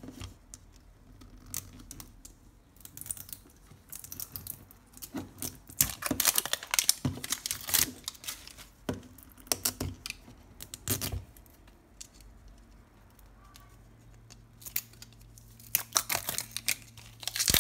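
Plastic wrap being torn and crinkled off a Toy Mini Brands capsule ball, in crackling bursts that come thickest in the middle and again near the end.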